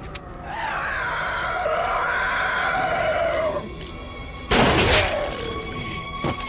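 A long, shrill scream lasting about three seconds, then about four and a half seconds in a short, loud explosive blast, the loudest sound here.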